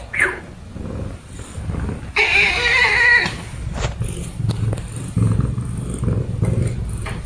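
Chinese Li Hua tabby cat calling: a short rising chirp at the start, then a longer, drawn-out meow about two seconds in, followed by a low, uneven rumble.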